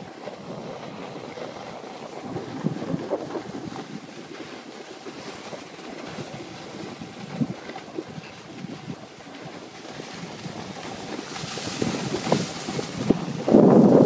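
Wind rushing over the microphone with the scrape of sliding on packed, groomed snow, getting louder toward the end as the speed builds.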